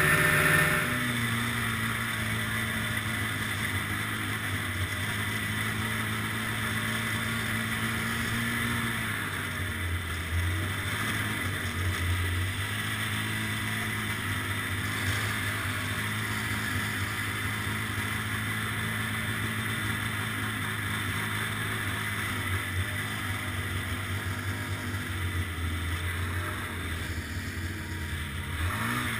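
Ski-Doo snowmobile engine running at low speed: it drops to a lower pitch as the throttle eases about half a second in, then holds a steady drone with small surges in pitch.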